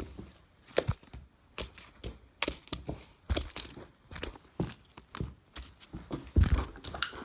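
Irregular clicks, taps and rustles of small fidget toys being handled, picked up and set down, with a louder thump near the end.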